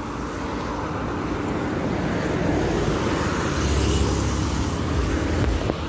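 Road traffic on a multi-lane highway: car tyre and engine noise, swelling as a car goes by about four seconds in.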